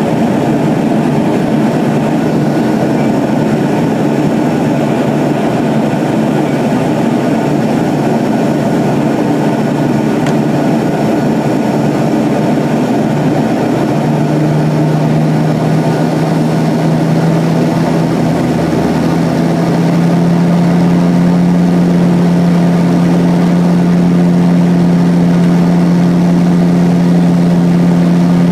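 Aircraft engine drone heard inside the passenger cabin: a steady rushing noise with a low hum that steps up slightly in pitch about halfway through and grows a little louder a few seconds later.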